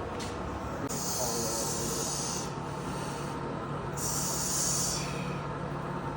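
Two long hissing breaths forced out under strain, the first about a second and a half long and the second about a second, over a steady low hum.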